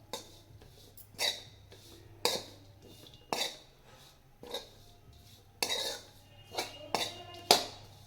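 A cooking spoon scraping and knocking against a kadhai while stirring nuts and spices frying in ghee, in sharp clatters about once a second, coming quicker near the end.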